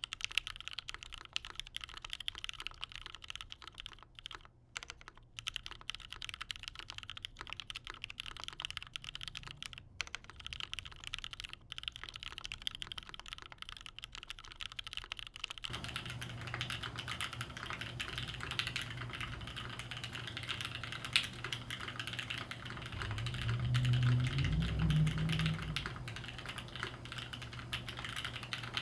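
Continuous fast typing on a dnworks Seven prototype mechanical keyboard: lubed Tealio switches with Cherry top housings, GMK keycaps, an aluminium plate and a double O-ring mount, giving a steady stream of rapid key clacks. About halfway through, the recording switches to the camera's built-in microphone, so the typing sounds duller over more low background noise, with a low rumble for a couple of seconds near the three-quarter mark.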